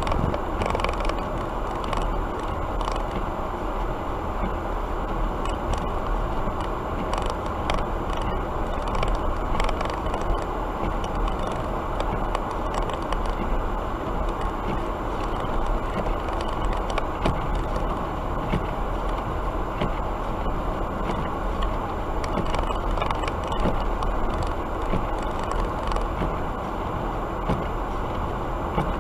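Steady road and engine noise of a car being driven, with faint scattered ticks.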